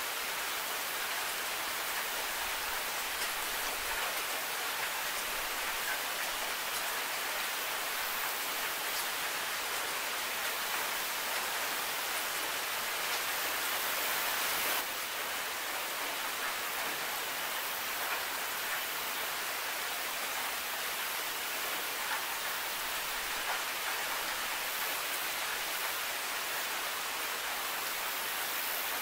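Steady heavy rain falling, an even dense hiss of drops on a hard surface, with a slight step down in level about halfway through.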